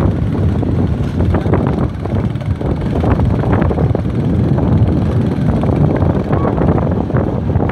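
Vehicle engine running with heavy wind buffeting on the microphone, recorded from a vehicle moving ahead of a racing bullock cart.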